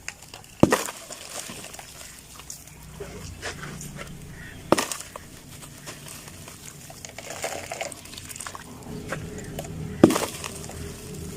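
Dry sand-cement lumps crumbling and breaking: three sharp cracks a few seconds apart, each followed by a short crunchy crumble, with light gritty crackling in between.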